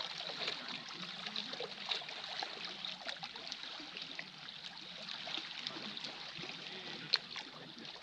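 Small waves lapping and gurgling among shoreline rocks, a steady wash full of little crackles, with one sharp click about seven seconds in.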